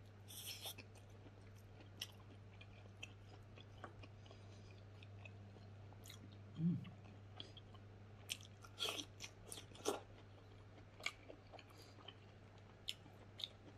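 Close-up eating sounds of a person chewing smoked pork leg: scattered wet smacks, bites and small crunches, with a faint steady hum underneath.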